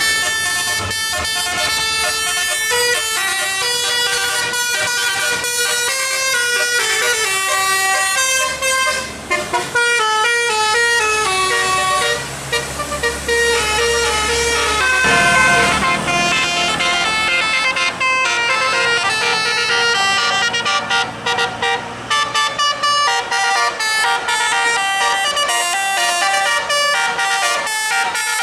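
Bus 'telolet' basuri musical air horn sounding through roof-mounted trumpets, playing a long melody of short notes that step quickly up and down in pitch.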